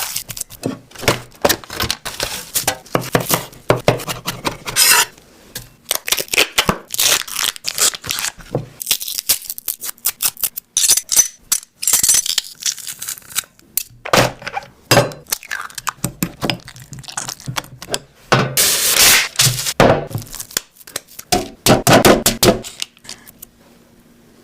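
Food being eaten and handled close to the microphone: irregular crunching and tearing noises with clinks of dishes, in quick uneven bursts with short pauses between them.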